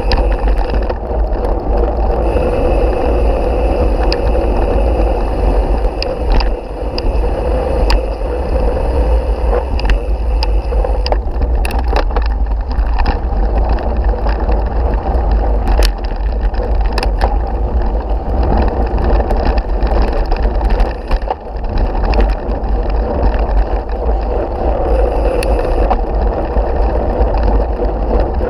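Mountain bike ridden over gravel and paved paths, heard from a camera on the bike: steady tyre and road noise under heavy wind rumble on the microphone, with scattered sharp clicks and rattles.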